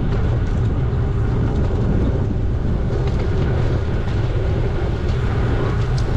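Steady low rumble of wind buffeting the microphone and road noise from a moving bicycle.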